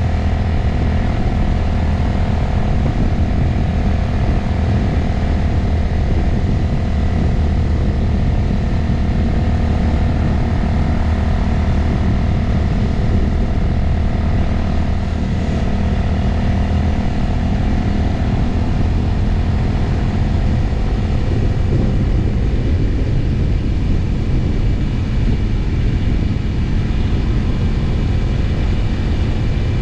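Motorcycle engine running steadily at cruising speed, with wind noise on the microphone. The engine note changes a little about halfway through.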